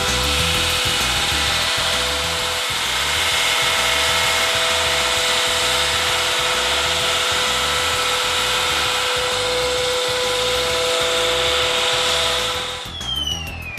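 Track-mounted diamond wall saw cutting through a concrete wall: a loud, steady cutting noise with a constant whine. Near the end the cutting noise stops and a whine falls steeply in pitch.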